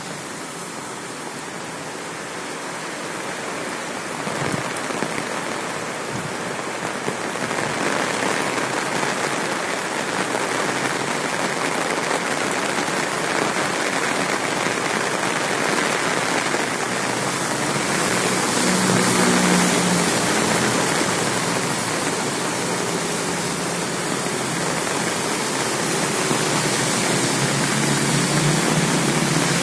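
Heavy rain pouring onto a wet, puddled street: a dense, steady hiss that grows louder about eight seconds in. A passing car's low hum rises under it once or twice.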